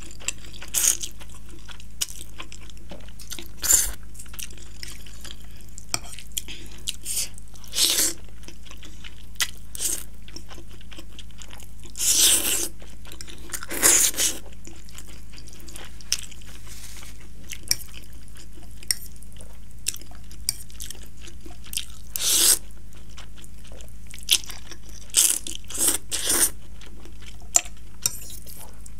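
Close-miked eating of spicy instant ramen noodles: a dozen or so short, loud slurps, the longest about twelve and fourteen seconds in and a quick cluster near the end, with wet chewing between them.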